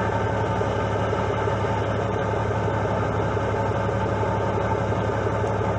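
A fishing charter boat's engine running steadily, an even hum that does not change.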